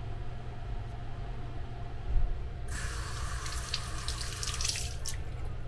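Automatic sensor faucet running for about two seconds, water splashing over a hand and into a small washbasin, then shutting off. A dull thump comes just before the water starts, over a steady low hum.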